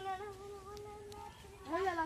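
A child's voice holding one long, steady note, like a drawn-out call or hum, then a short call that rises and falls near the end.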